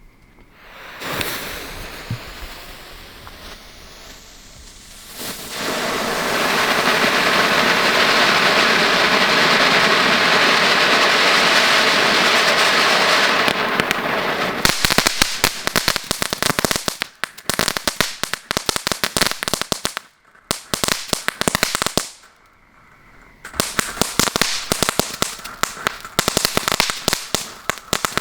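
Inferno Fury strobe fountain, a youth firework, burning. It sizzles quietly for the first few seconds, then gives a loud steady hiss for about eight seconds, then switches to rapid crackling strobe pops in bursts with short pauses until near the end.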